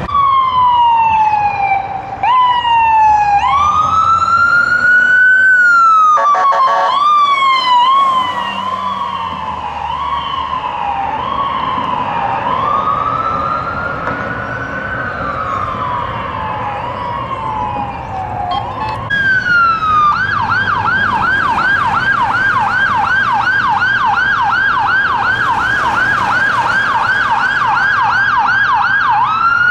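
Emergency vehicle sirens. A fire department ambulance's electronic siren wails and yelps in rising and falling sweeps, with a brief horn blast about 7 s in. From about 20 s a police SUV's siren runs in a rapid yelp of about three sweeps a second.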